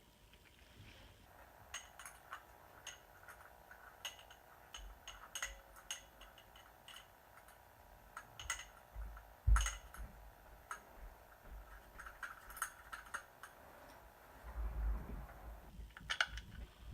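Small metal carburetor parts and hand tools clicking and clinking on a workbench as a snowmobile carburetor is put back together by hand, with a louder knock about halfway through and a duller thud near the end. A faint steady hum runs underneath most of it.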